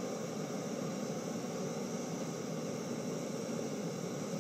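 Gas-canister camping stove burning under a pot, a steady even hiss.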